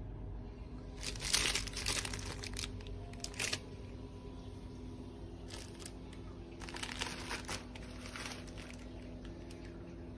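Clear plastic packaging bags crinkling as they are handled, in several bursts of rustling: about a second in, briefly around three and a half seconds, and again between about five and a half and eight seconds, over a steady low hum.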